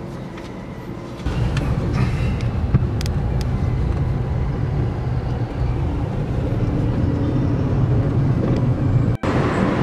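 Car driving in city traffic, heard from inside the cabin: a steady low road and engine rumble that gets suddenly louder about a second in, with a brief break near the end.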